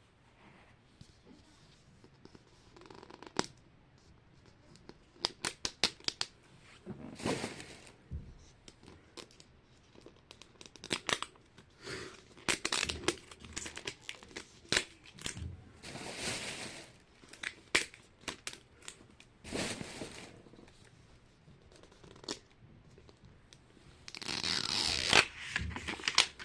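Plastic packaging of a Foodie Mini Brands capsule being torn open and crinkled by hand, with scattered clicks and rustles and a longer, louder tear near the end.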